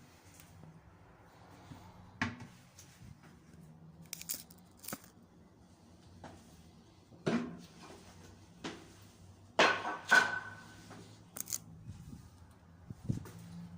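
Scattered clicks and knocks of things being handled, with the loudest pair about ten seconds in, one of them carrying a brief squeak.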